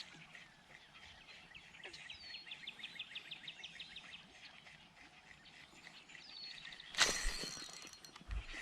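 Birds calling: a fast trill of repeated notes about two seconds in and a few short falling whistles. About seven seconds in, a sudden loud rush of noise fades away over about a second.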